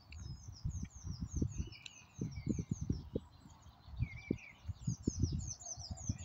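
Dawn chorus of small songbirds: a quick run of high, down-slurred chirps repeating several times a second, with other birds' phrases a little lower. Under it, irregular low rumbling on the microphone is the loudest sound.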